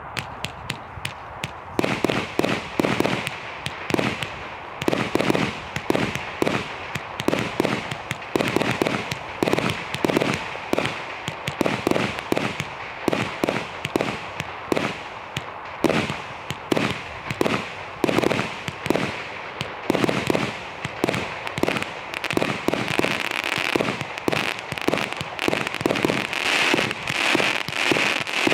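Sovereign Fireworks 'Plot of 1605' 70-shot barrage cake firing shot after shot, several a second: a rapid, steady string of launch thuds and burst bangs, with a hiss between them.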